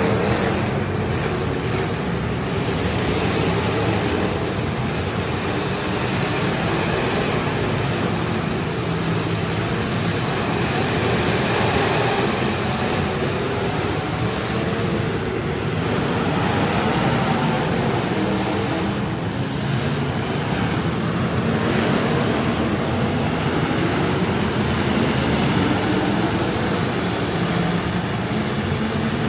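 Demolition derby cars' engines running together, a steady, loud mix of engine noise.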